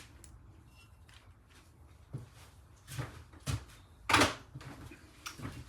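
Hand tools and small metal engine parts being handled and set down on a workbench: a handful of separate clinks and knocks, the loudest about four seconds in.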